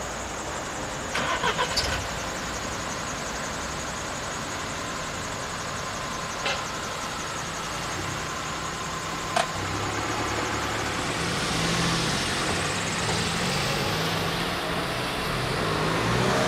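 Level crossing's electronic warning bells ringing with a fast steady ring as the barriers lift, cutting off with a click about nine seconds in. After that, car engines idle and pull away over the crossing, getting louder toward the end.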